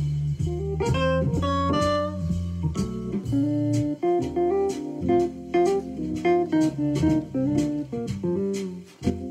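Jazz solo played on an Akai EWI electronic wind instrument, a quick-moving melodic line over a swing backing track with bass and chords.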